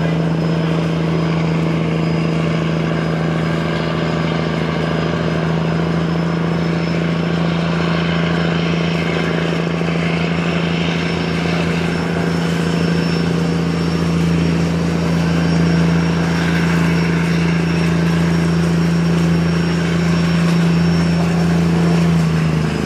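Boat engine running loud and steady at a constant speed, its pitch dipping slightly near the end.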